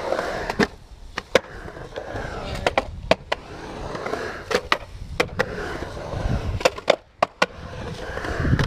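Skateboard wheels rolling over the concrete of a skate bowl: a steady, rough rumble broken by a dozen or so sharp clicks and clacks.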